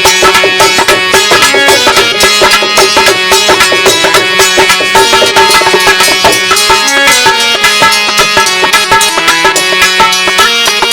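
Instrumental break of a Hindi song: a melody over sustained tones and a steady, fast percussion beat, with no singing.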